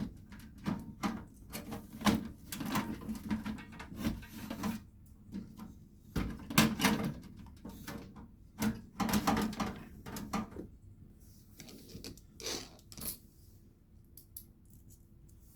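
Hands handling computer parts and a case: a run of short clicks, knocks and rustles, thinning out and growing quieter after about eleven seconds.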